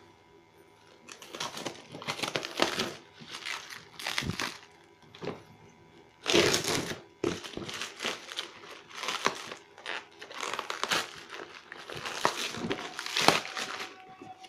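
Clear plastic wrap being cut with a knife and torn off a cardboard parcel, crinkling and tearing in irregular bursts that begin about a second in.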